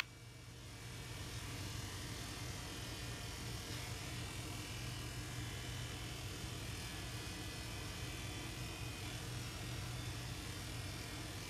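Electric dog grooming clippers running with a steady hum, building up over the first second and then holding even while trimming a Yorkie's hair.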